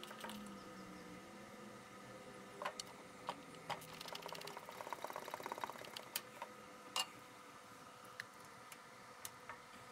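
Hand ratchet clicking while the engine shroud bolts are undone: a few separate clicks, then a quick run of ratchet clicks about four to six seconds in, and a few more sharp clicks after.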